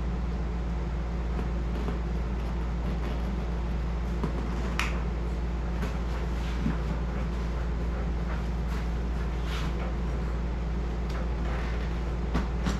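A steady low hum, with scattered short clicks and rustles of soft luggage being handled: buckles, straps and fabric.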